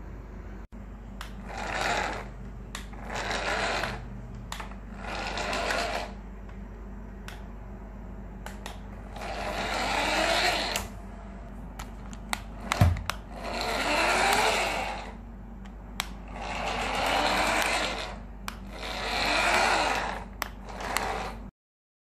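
Toy remote-control car's small electric motor whirring in repeated bursts of a second or so, its pitch rising and falling as it starts and stops, with clicks between runs and one sharp knock about halfway through.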